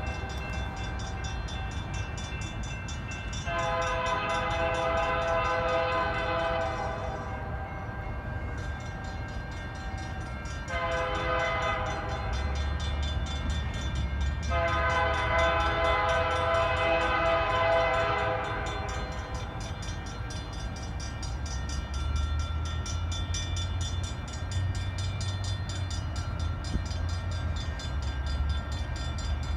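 Horn of an approaching CN freight locomotive sounding three blasts of several tones together: long, short, then long. A low diesel rumble sets in after the second blast.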